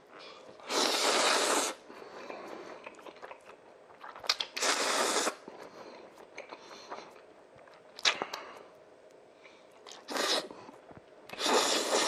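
A person eating black-bean-sauce instant noodles (jjapagetti). Loud slurps of about a second each come four times, with wet chewing and smacking between them.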